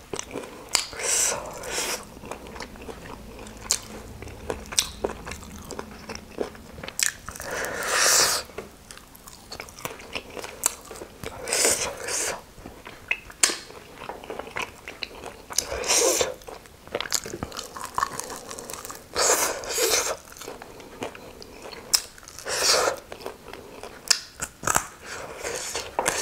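Close-miked eating: biting and chewing crispy fried chicken wings, with irregular crunches and mouth clicks every second or two.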